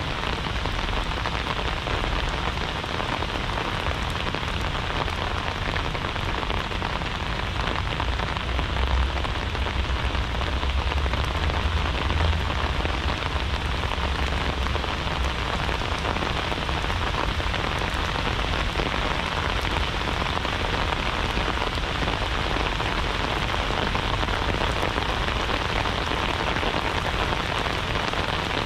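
Steady rain falling and pattering on surfaces, a continuous even hiss, under a low rumble that swells for several seconds in the middle.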